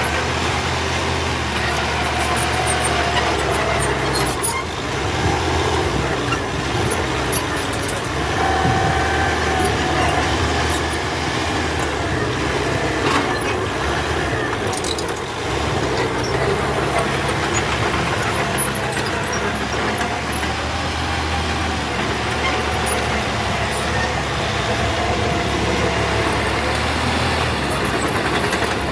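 Heavy diesel earthmoving machine working, its engine rising and falling under load, with a whine that comes and goes and scattered clanks.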